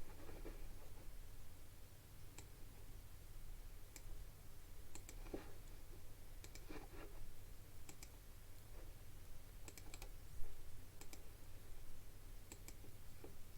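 Scattered clicks of a computer mouse and keyboard, irregular and some in quick pairs, over a faint low hum.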